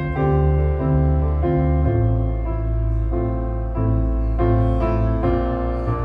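Slow piano ballad played through floor-standing hi-fi loudspeakers: sustained piano chords, a new one about every two-thirds of a second, over a low bass that deepens about two seconds in.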